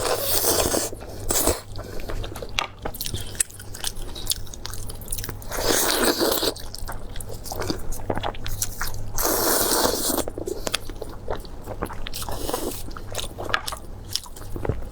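Close-miked eating: repeated bites and crunchy chewing, with clicks and smacking throughout and several louder bursts of crunching.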